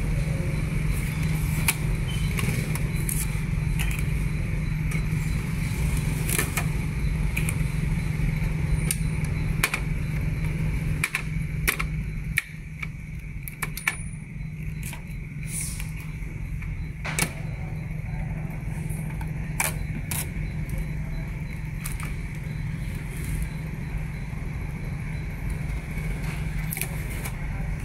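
Blue protective tape being peeled off an Epson ink-tank printer's plastic body and the parts handled, giving scattered sharp clicks and crackles. Under them runs a steady low hum with background noise.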